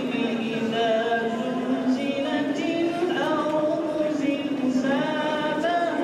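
Voices chanting a slow religious hymn together, with long held, wavering notes.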